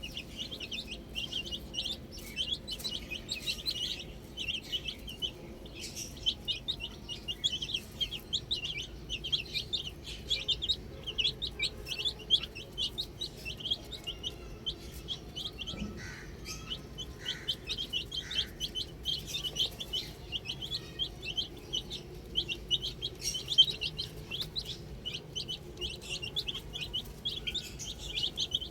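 A group of baby chicks peeping constantly, a rapid overlapping stream of short high chirps that thins a little around the middle, when a few lower calls come in.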